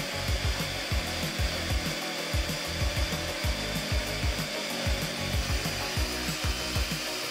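Electric hand mixer running steadily, its twin beaters whipping egg whites and sugar into meringue in a glass bowl, with frequent low knocks and rubbing of the beaters against the bowl.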